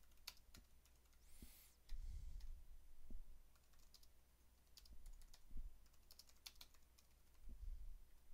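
Faint typing on a computer keyboard: irregular, scattered keystrokes, with a few low thuds in between.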